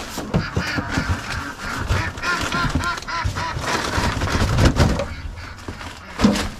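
Ducks calling in a quick run of short, repeated quacks around the middle, over a low, uneven rumbling.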